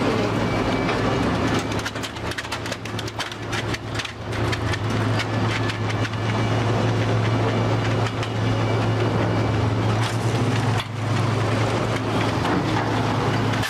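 Heavy machinery running with a steady low hum, overlaid by repeated clatter and knocks.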